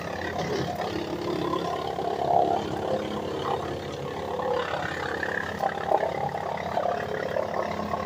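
WM810 tractor-PTO wood chipper running under load, chewing branches fed into its hopper, with the tractor engine running beneath it. It goes on steadily, growing briefly louder a few times as wood is bitten.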